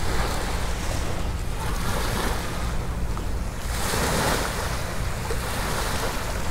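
Sea waves washing onto a beach, with wind rumbling on the microphone; a wave surges in a little past halfway through, its hiss swelling and then easing.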